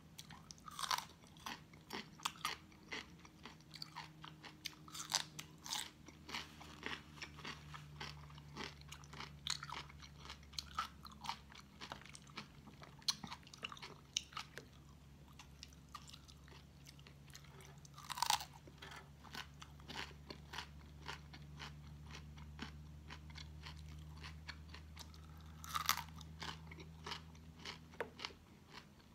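Close-miked chewing with crisp crunches and small mouth clicks, as crisp raw vegetables are bitten and eaten. A few crunches stand out louder.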